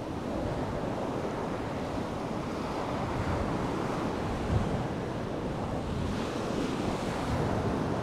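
Sea surf breaking and washing up a sandy beach in a steady rush, with wind buffeting the microphone.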